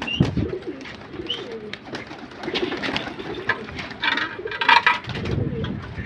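Domestic pigeons cooing, low repeated calls, with scattered sharp taps and two brief louder, harsher sounds about two-thirds of the way through.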